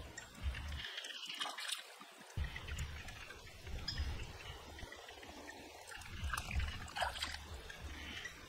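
Water dribbling and light wet splashes from hands skinning and rinsing frogs over a shallow pond, under a low rumble that drops out for about a second and a half near the start.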